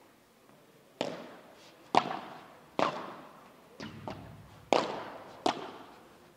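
Padel rally: the ball struck by solid padel rackets and bouncing in play, about seven sharp pops roughly a second apart, each followed by a short ringing echo.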